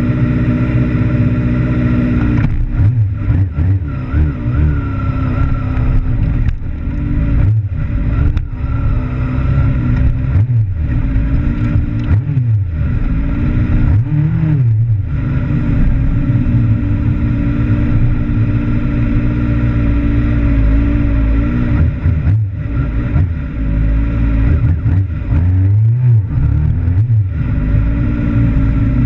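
Sport bike engine heard from a camera mounted on the bike, idling steadily for about two seconds, then running at low revs with repeated brief throttle openings and closings, the pitch rising and falling as the bike rolls slowly along.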